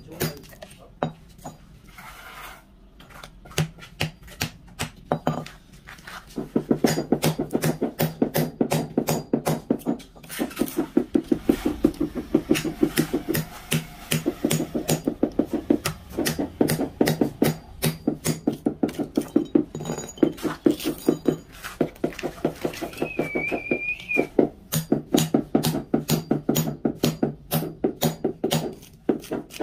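Rubber mallet tapping a 40 by 40 ceramic floor tile down into its mortar bed to level it: rapid, even knocks, several a second, with short pauses.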